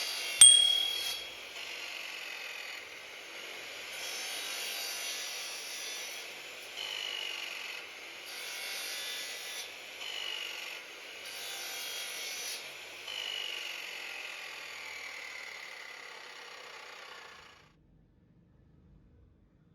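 Bosch power cutter cutting wood in repeated passes. Its running sound swells several times, and its pitch drops briefly three times as the blade bites. A sharp click about half a second in, and the sound stops abruptly near the end.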